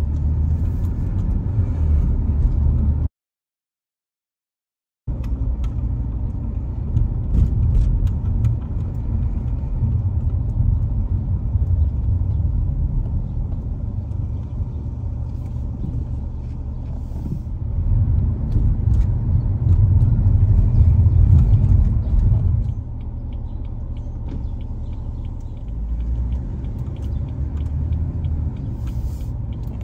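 Steady low rumble of a car being driven slowly on city streets. It cuts out completely for about two seconds a few seconds in, grows louder for a few seconds past the middle, then eases back.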